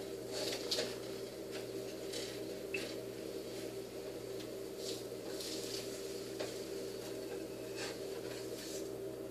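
A spatula scraping and tapping against a frying pan in short, irregular strokes as fried eggs are loosened and flipped, over a steady low hum.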